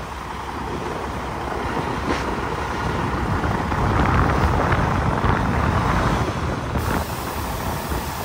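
Heavy diesel tractor-trailer with a dump trailer rolling slowly forward, its engine running in a low rumble, with wind buffeting the microphone; the rumble grows a little louder about halfway through.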